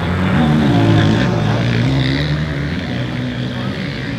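Several motocross bike engines idling together, with one revving up and back down about a second in.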